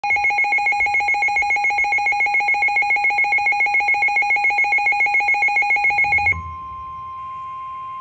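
Midland weather radio sounding its alert for a received severe thunderstorm warning: a loud, rapidly pulsing two-pitch beep for about six seconds. It then switches abruptly to a steady single tone, the NOAA Weather Radio 1050 Hz warning alarm tone that comes before the spoken warning.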